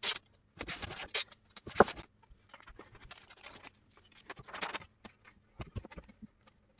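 Sheets of printed paper rustling and rubbing in short irregular bursts as they are handled and pressed onto a slab of foam board, with a glue stick rubbed across the paper near the end.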